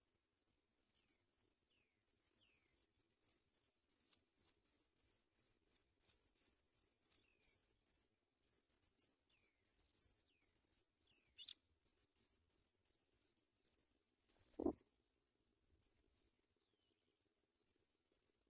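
High, thin chirping of African pipit nestlings begging for food: many short calls a second, growing denser and louder, then thinning to scattered calls near the end. A single dull thump comes late on.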